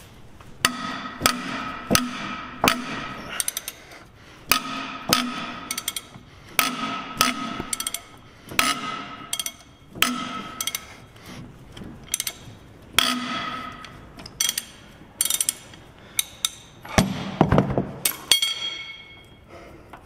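Socket and ratchet wrench working a nut loose: sharp metallic clicks, singly and in short runs every second or so, each with a bright ringing tail.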